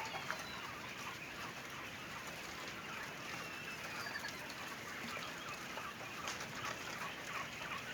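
A large flock of laying quail calling together: a dense, continuous chatter of many short high chirps with a few thin whistles.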